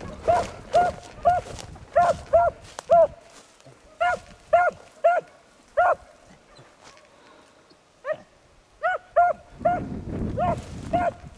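A lone beagle giving tongue on a trail: short, repeated barks about two a second, breaking off for about two seconds midway and then starting up again.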